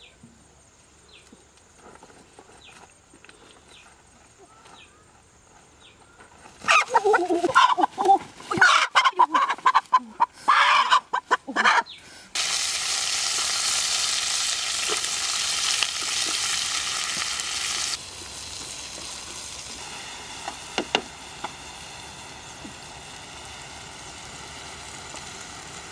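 A hen squawks loudly and repeatedly for about five seconds as it is grabbed by hand. Then, suddenly, a steady loud sizzle of food frying in a wok over a wood fire, which turns quieter partway through.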